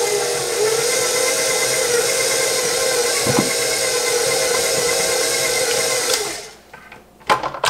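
Electric stand mixer running steadily, mixing raisins into oatmeal cookie dough, then switched off about six seconds in.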